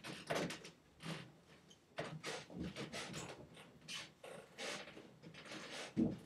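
Irregular clicks, creaks and rustles of things being handled on a desk.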